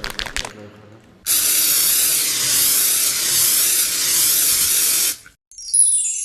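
A loud spraying hiss lasting about four seconds, with a slow wavering texture, followed near the end by a quick run of chiming tones.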